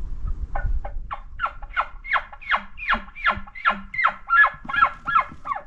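Elk chuckles blown on a hunter's elk call close by: a fast run of about fifteen short grunting notes, each dropping in pitch, about three a second. This is the chuckle sequence a bull elk gives after bugling, used here to call to a bull.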